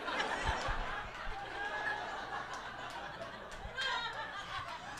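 Comedy-club audience laughing after a punchline: a spread of mixed laughter that eases off toward the end.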